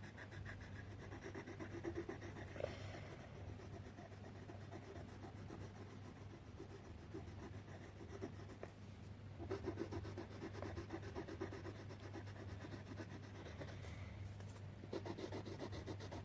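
Coloured pencil scratching rapidly back and forth on paper as a picture is coloured in, faint, in stretches with short pauses.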